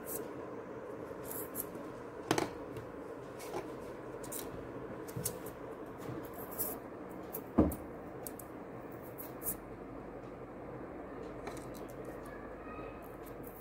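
Light clicks and scratches of a push pin being worked into small thermocol (polystyrene foam) balls and the balls being handled, with two sharper clicks about two and seven and a half seconds in, over a steady low background hum.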